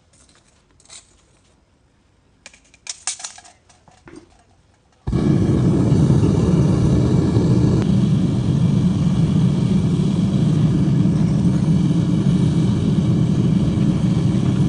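A few quiet scrapes and clicks as a steel rod stirs molten aluminium in a crucible. From about five seconds in, a loud, steady roar of a gas flame takes over.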